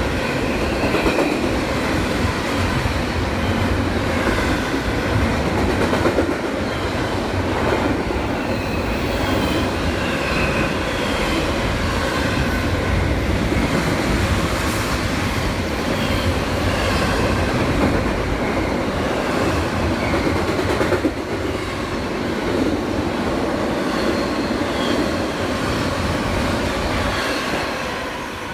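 Freight train cars rolling past close by: a heavy rumble and wheels clattering over the rail joints, with thin high wheel squeals. The sound falls away near the end as the last car goes by.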